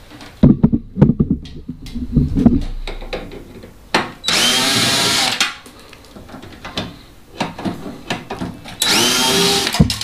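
Cordless drill running in two short bursts of about a second each, spinning up as it backs screws out of a microwave oven's sheet-metal housing. A few knocks and clatters of handling come in the first couple of seconds.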